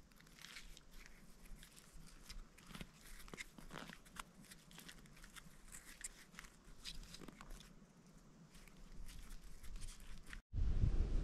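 Grass fibres rustling and crackling faintly in the hands as they are twisted into cord, with many small irregular clicks. Near the end the sound cuts out briefly and a louder low rumble takes over.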